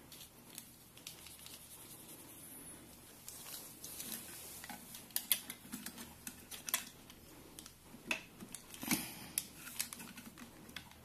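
Plastic ink dampers and their silicone ink tubes being handled and pressed onto an inkjet printer's print head: soft rustling at first, then a string of small sharp clicks and taps through the second half.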